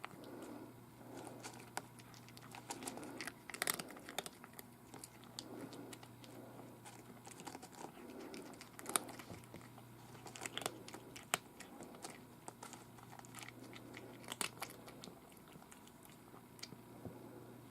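A black cat eating, chewing its food with irregular crunches and clicks.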